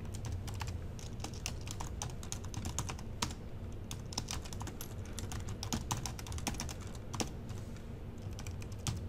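Typing on a computer keyboard: a run of quick, irregular key clicks with brief pauses between words.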